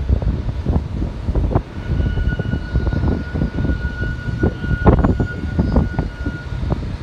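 Distant Emirates Airbus A380's four turbofan engines rumbling as it rolls along the runway after touchdown, the rumble rising and falling unevenly, with a steady high whine through the middle.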